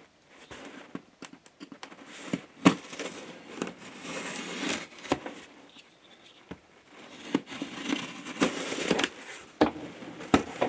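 Opinel No. 10 carbon-steel folding knife slicing through packing tape along the seams of a cardboard box: irregular scrapes, sharp taps and crinkling of tape and cardboard, with the box being handled.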